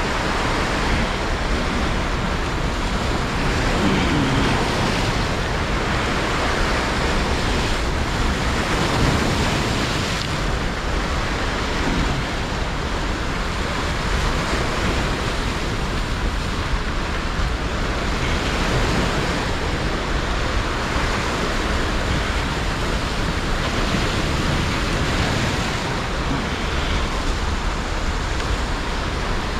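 Turbulent whitewater rushing and churning over and against rocks: a steady, loud roar of water.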